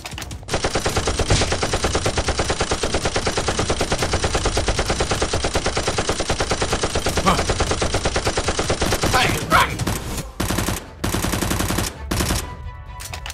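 Automatic-gunfire sound effect laid over a toy-blaster fight: one long, rapid, evenly paced burst of about ten seconds, then three short bursts near the end.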